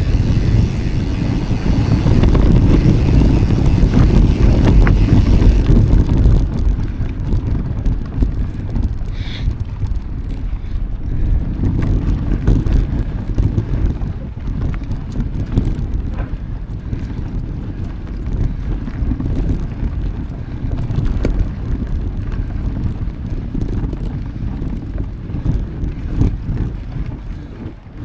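Wind rushing over the microphone while riding a mountain bike, with tyre rumble and small rattles. It is louder for the first six seconds or so, and there is a brief high squeak about nine seconds in.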